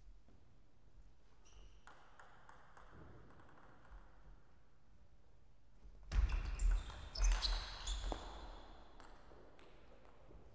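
Table tennis rally: a quick run of sharp clicks as the celluloid-type ball is struck by the bats and bounces on the table, lasting about two seconds, starting about six seconds in. A few fainter ball taps come a few seconds earlier.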